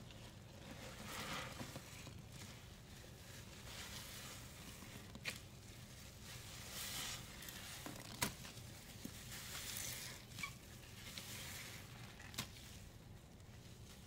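Hands squeezing and crumbling a soft powder paste: quiet crunching, squishing swells with a few sharp clicks.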